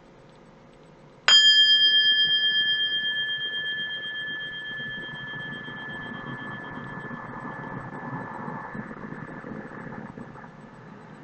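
A metal bell struck once about a second in, ringing a clear high tone that fades slowly over several seconds with a slight wavering.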